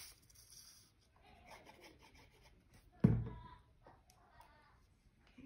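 Paper-plate pieces rustling and rubbing against each other and the newspaper as a glued paper tail is pressed onto a paper-plate fish body, with one sharp thump about three seconds in.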